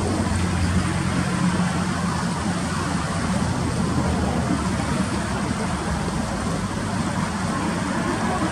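Steady rush of the Latorytsia river running over shallow riffles. A low hum lies underneath, strongest in the first couple of seconds.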